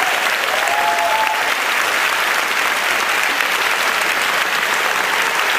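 A large audience applauding steadily in a hall, with one brief cheer rising above the clapping about a second in.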